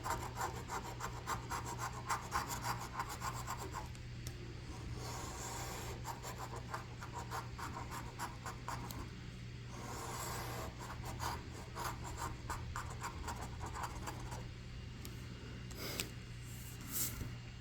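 A coin scratching the coating off a lottery scratch-off ticket in rapid back-and-forth strokes, in three spells with short pauses between, then a couple of light taps near the end.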